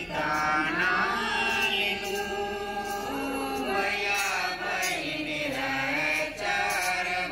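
A voice chanting the final prayer in long, held, wavering sung phrases.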